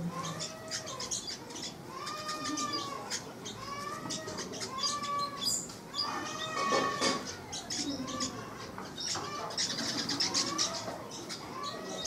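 Birds calling in a bush: a repeated rising-and-falling call note, roughly once a second, over a busy chatter of short high chips.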